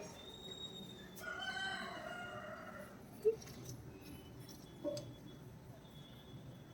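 A rooster crowing once, faint, starting about a second in.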